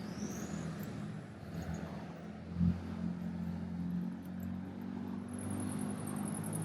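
A motor vehicle's engine running close by in the street, a steady low hum, with a short thump about two and a half seconds in. A high, fast chirring starts near the end.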